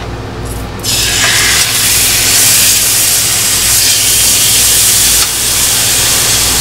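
Pork butt steaks sizzling loudly as they are laid into hot olive oil in a skillet. The sizzle starts suddenly about a second in and then holds steady.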